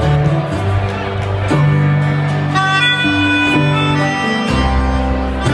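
Live band playing an instrumental break in a Christmas song: electric keyboard, strummed acoustic guitar and a bass line, with a harmonica taking the melody in held notes from about halfway through.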